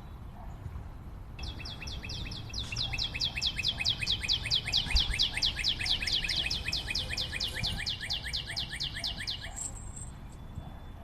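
A bird singing one long, rapid trill of repeated down-slurred notes, lasting about eight seconds; it grows louder a second or so in and stops abruptly near the end.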